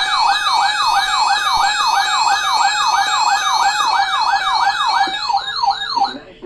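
Electronic siren-style alert tone in a fast yelp: the pitch sweeps up and down about three times a second. It serves as the attention signal ahead of an Emergency Alert System severe thunderstorm watch message, and cuts off about six seconds in.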